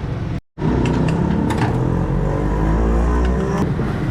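A machine's motor spinning up, its pitch rising steadily for about three seconds before it cuts off abruptly, over a steady low rumble; the sound breaks off briefly just before the rise begins.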